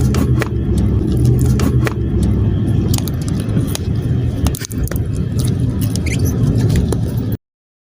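Slime being squished and poked by hand, making many short sticky clicks and pops over a steady low rumble. It cuts off suddenly near the end.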